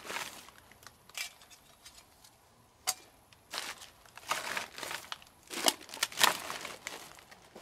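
Plastic sack and plastic wrappers crinkling and rustling as litter is stuffed into the sack by hand, in irregular bursts, loudest about six seconds in, with one short sharp click about three seconds in.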